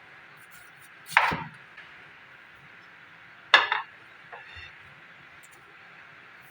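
Kitchen knife chopping through a white onion onto a cutting board: two sharp chops about two and a half seconds apart, with a fainter tap shortly after the second, over a faint steady hiss.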